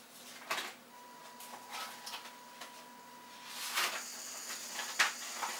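Small electric motors of an Arduino-driven test rig, a stepper motor and a geared DC motor, running: a steady high whine starts about a second in, then a louder, noisier running sound takes over, with a sharp click near the end.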